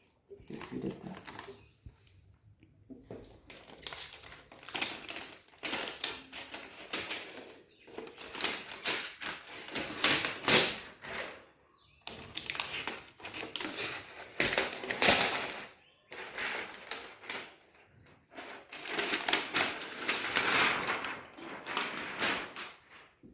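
Protective plastic cover being torn open and pulled off a new laptop: crackling, rustling handling noise that comes in bursts, with short pauses between them.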